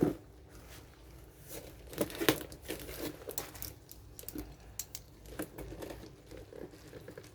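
Packaging being handled: irregular crinkling and rustling of plastic wrapping and cardboard, with scattered small clicks.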